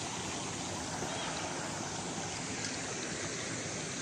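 Shallow, clear river water flowing over stones and pebbles, making a steady, even rushing.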